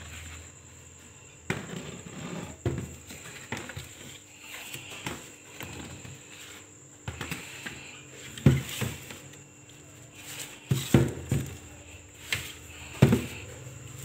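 Irregular knocks and clatter of a plastic fruit crate being handled, a dozen or so sharp taps spaced a second or two apart. A thin, steady high-pitched tone runs underneath.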